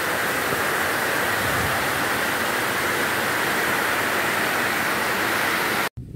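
Heavy tropical rain pouring down in a dense, steady hiss. It cuts off abruptly near the end.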